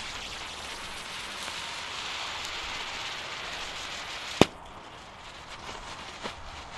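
The fuse of a ground spinner firework hisses steadily as it burns. About four and a half seconds in there is a single sharp pop as the firework lights, followed by a quieter fizz.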